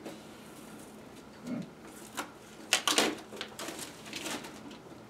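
Clear plastic shrink-wrap crinkling and tearing as it is peeled off a cardboard product box: a few sharp crackles and rips, loudest about two to three seconds in.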